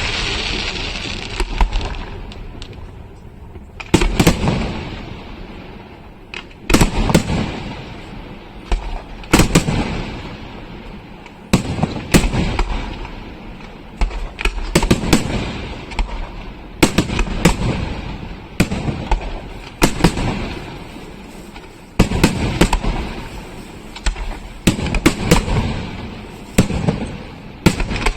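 Aerial firework shells bursting in a pyrotechnic display, a sharp bang every second or two, sometimes two close together, each rolling away in a long echo.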